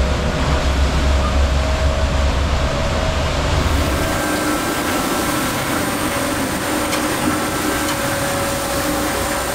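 Cabin noise of a Candela P-12 electric hydrofoil boat under way: a steady rush of wind and water with a faint steady whine. A deep low rumble underneath stops about four seconds in.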